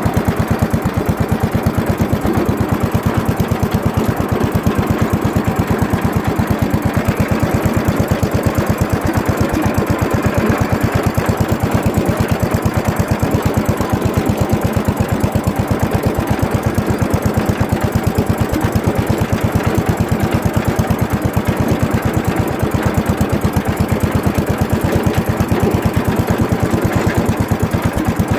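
Wheel Horse Raider 10 garden tractor engine running steadily as the tractor drives across a lawn, with a fast, even chug of firing pulses.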